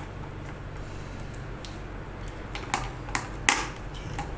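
Sharp plastic clicks as AA batteries are pressed into the battery compartment of a Hach DR900 portable colorimeter: four clicks in the second half, the loudest about three and a half seconds in.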